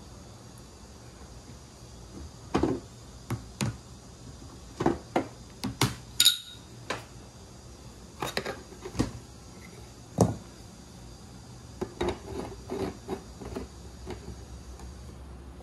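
Metal pipe legs knocking and clinking against threaded floor flanges and the aluminium-framed box as they are handled and screwed in. Scattered sharp metallic clicks, one ringing briefly about six seconds in.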